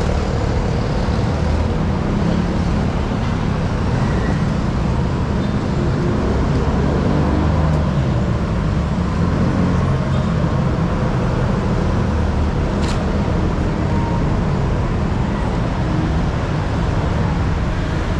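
Steady traffic noise from a busy city road: a continuous low rumble of cars, jeepneys and motorcycles passing. A single short click about two-thirds of the way through.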